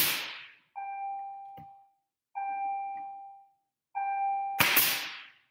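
Pneumatic brad nailer firing twice, once at the very start and again about four and a half seconds in, each shot a sharp loud crack. Between the shots come three separate ringing tones, each about a second long and fading out.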